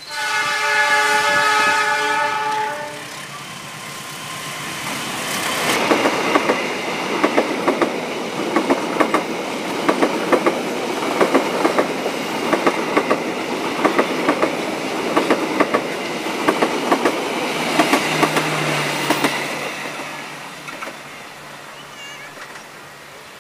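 Diesel locomotive horn blown for about three seconds as a passenger express train approaches. The train then runs close past at speed, its wheels clicking rhythmically over the rail joints coach after coach. The sound fades as it recedes.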